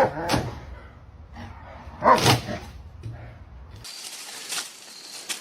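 A dog barking twice, two short, loud barks about two seconds apart, each falling in pitch.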